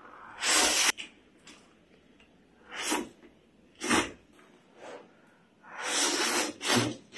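Short bursts of rustling as travel gear is handled and packed, about five in all with quiet gaps between them.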